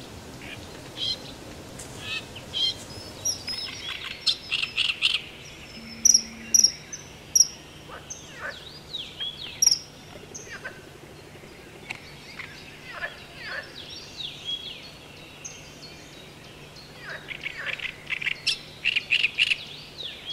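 Several small birds calling and singing: sharp, high whistled notes, the loudest between about six and ten seconds in, along with falling chirps and quick runs of repeated notes.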